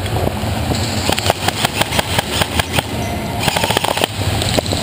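Airsoft guns firing: a fast, uneven string of sharp cracks starting about a second in and lasting about two seconds, then a few more shots near the end.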